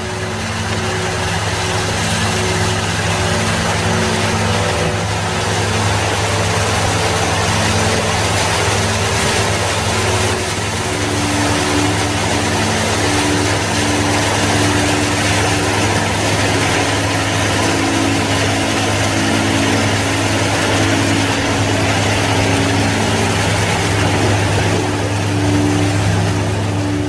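A canal barge's engine running steadily with a deep hum over a loud rush of churned water. Soft ambient music with sustained singing-bowl tones sounds underneath.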